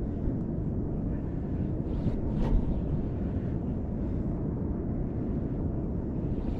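Steady low rush of wind on the microphone over moving water, with a faint click about two and a half seconds in.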